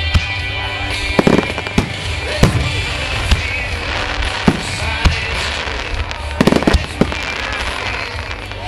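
Aerial fireworks shells bursting overhead in a fast, irregular series of bangs, with clusters of several close together about a second in and again around six and a half seconds.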